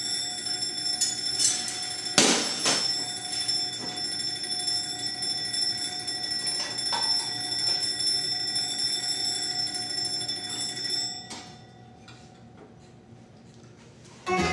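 Alarm clock ringing steadily, several high tones sounding together, with a few sharp knocks over it, the loudest about two seconds in. The ringing stops about eleven seconds in.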